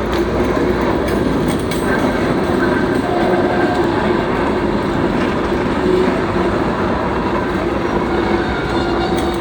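Freight train rolling past at close range: a steady loud rumble of wheels on the rails, with occasional clicks from the rail joints.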